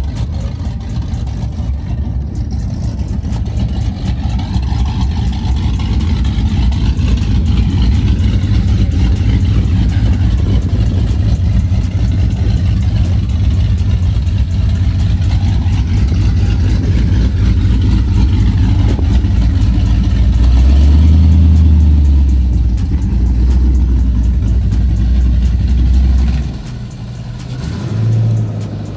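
A car engine running loud and close, its exhaust pulsing low. It gets louder about two-thirds of the way through, then drops away sharply near the end.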